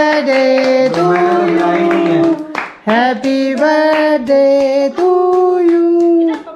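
A woman and children singing a birthday song together in long held notes, with some hand clapping.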